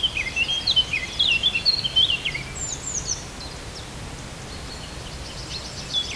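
Songbirds singing: a quick run of varied chirps and warbled notes, busiest in the first half, thinning out in the middle, with more song coming in near the end.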